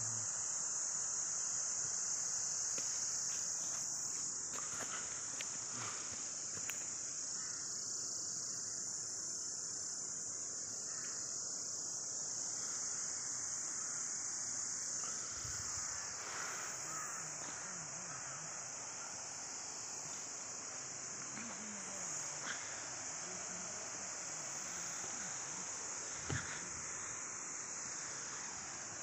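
Steady, high-pitched insect chorus, an unbroken shrill buzzing that does not change. A single sharp tap comes near the end.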